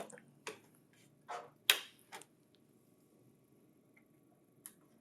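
A handful of sharp plastic clicks and knocks from a printer's column cover and power supply cable being taken off, the loudest a little under two seconds in and a faint one near the end.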